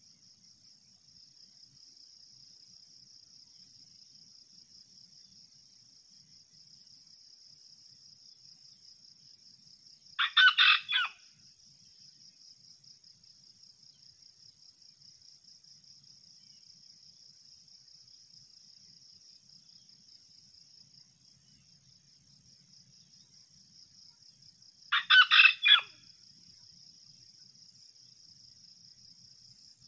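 Red junglefowl rooster crowing twice, about fifteen seconds apart, each crow short and clipped at about a second long, over a steady high pulsing insect buzz.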